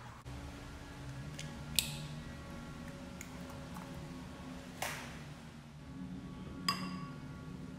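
Eggs cracked against the rim of a glass bowl: three sharp taps, about two, five and seven seconds in, the last with a short ring.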